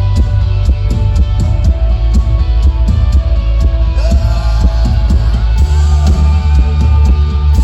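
Rock band playing live: heavy bass, guitars and a steady drum beat, loud and bass-heavy, with no words sung.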